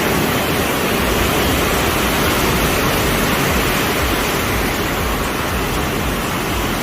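Steady rushing beach wind and surf noise with a low, unsteady rumble, loud and even throughout.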